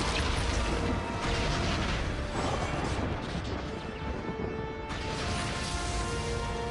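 Film sound effects of crackling lightning blasts and rumbling thunder, mixed over dramatic music with sustained tones.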